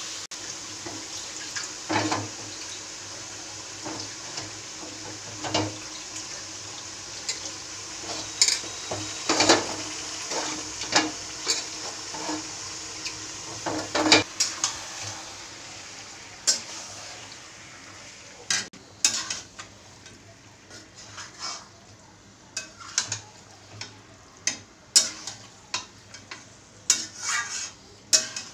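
A metal spatula stirs and scrapes marinated chicken and onions in a metal kadai, clinking against the pan again and again. Underneath is the sizzle of the chicken frying in hot mustard oil, which fades about halfway through.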